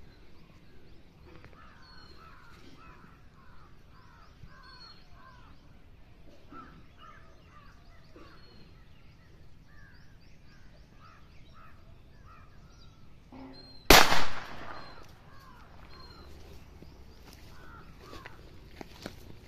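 A single shot from a .32 Nishank revolver about 14 seconds in: one sharp report with a brief echo, a test shot after adjusting the sights. Birds call repeatedly throughout.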